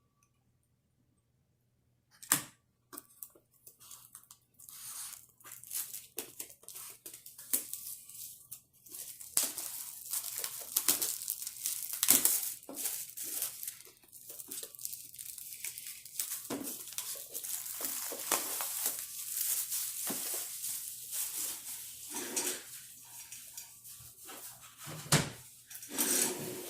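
Plastic wrapping being torn and crinkled off a model kit box, with many small handling clicks and rustles. It starts with a sharp click about two seconds in, after a short silence.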